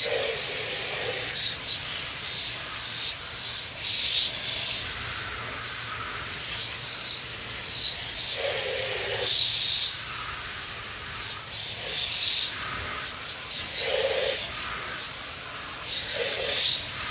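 Garden hose spraying water against a truck's alloy wheel and tire: a steady hiss of spray that swells and eases as the stream moves across the wheel, rinsing out leftover soap foam.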